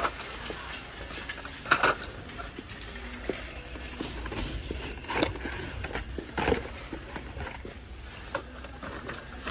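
Carded Hot Wheels cars in plastic blister packs being handled and hung on metal store pegs: irregular plastic clicks, knocks and card rustles, over a low steady hum.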